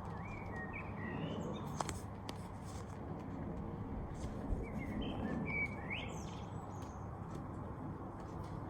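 Small birds chirping in short rising and falling calls, a few about half a second in and more around five seconds in, over a steady low background rumble.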